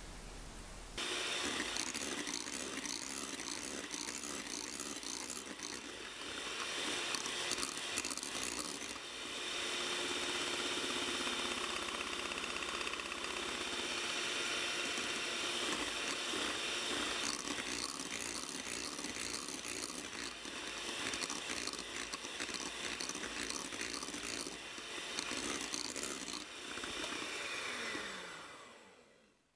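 Electric hand mixer whipping cream in a glass bowl, its twin wire beaters running steadily from about a second in as the cream thickens to stiff peaks. Near the end the motor is switched off and winds down with a falling whine.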